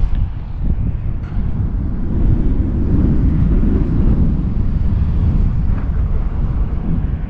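Gusty wind buffeting the microphone in a steady low rumble, with the faint thin whine of an RC stunt plane's electric motor and propeller overhead.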